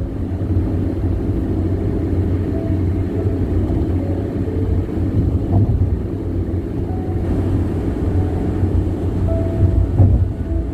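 Car tyres' road noise while driving at highway speed: a steady low rumble and drone with little hiss above it, which the owner suspects is unusually loud tyre noise.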